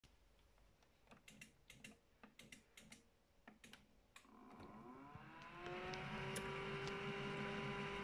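Irregular light clicks, then the LG Direct Drive washing machine's drum motor starting up with a whine that rises in pitch as the drum gets going and holds steady from about two seconds later, as the drum turns the laundry in the wash cycle.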